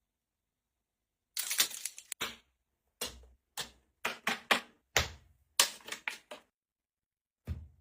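Small hard objects being handled and set down: a run of about a dozen sharp clicks and knocks in irregular clusters, with silent gaps between.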